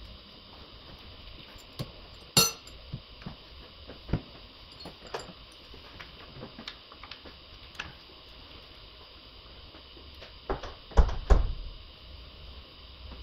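Hand tools and engine parts clicking and clinking as they are handled: scattered light clicks, one sharp ringing metallic clink about two seconds in, and two heavier knocks a moment apart near the end.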